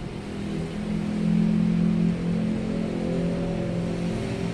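A steady machine hum: a low drone with a few steady tones, swelling between about one and two seconds in, over a faint even hiss.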